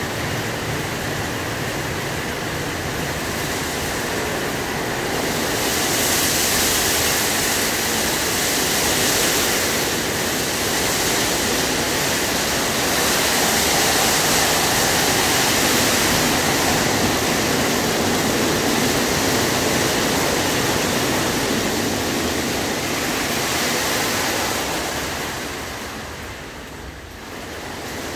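WashTec SoftCare2 Pro rollover car wash running: its spinning brushes scrub a car while water sprays, a steady noise that grows louder about five seconds in and dips briefly near the end.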